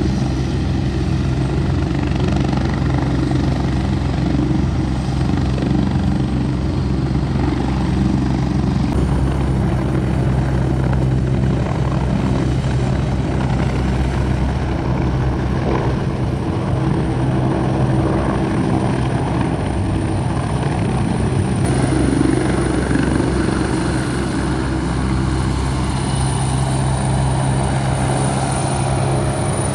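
Large turbine helicopter lifting off and climbing away: a steady low rotor beat under a high turbine whine, which sets in about a third of the way through and grows louder near the end.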